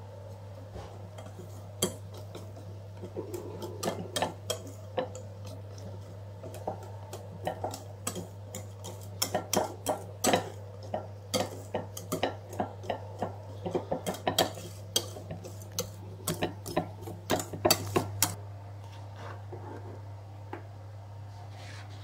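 Kitchen utensils clinking and tapping against dishes, an irregular run of sharp clinks through most of the stretch, over a steady low hum.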